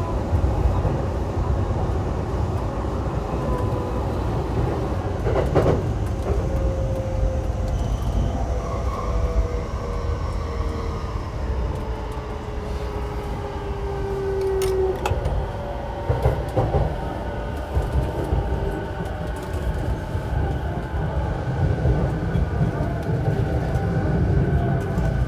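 Running noise of a JR E233-7000 series electric train's motor car, heard from inside: a steady rumble of wheels on rail with a motor whine that falls in pitch as the train slows. A few sharp clacks come over rail joints.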